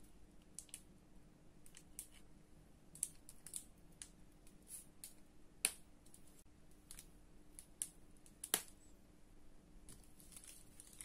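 Faint, irregular clicking and crinkling of a piping bag squeezed in the hand, with two sharper clicks in the second half. A faint steady hum runs underneath.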